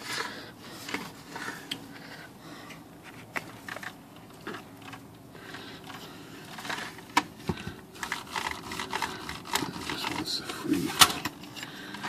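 Exposed mechanism of a Smith-Corona Galaxie Twelve manual typewriter being worked by hand: irregular small metallic clicks and rattles, with a few sharper clicks in the second half.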